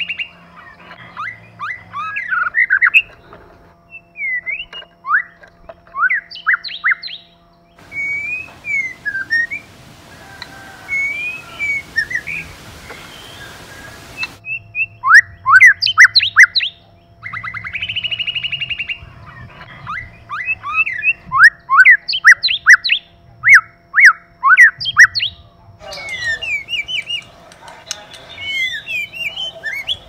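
White-rumped shama singing: quick runs of sharp rising and falling whistles and chirps, with a harsh buzzy call about a second long a little past the middle.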